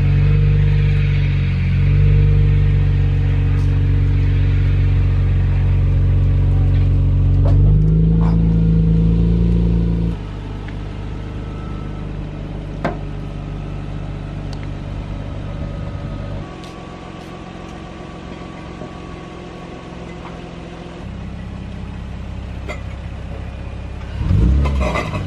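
Lexus IS straight-six engine idling steadily through its exhaust, heard in several cut-together stretches of differing loudness. It swells briefly louder near the end.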